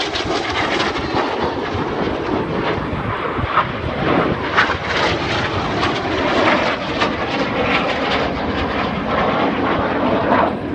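Jet engine noise from the Red Arrows' synchro pair of BAE Hawk T1 jets flying low and fast at full power. It is loud and continuous, with a crackling edge.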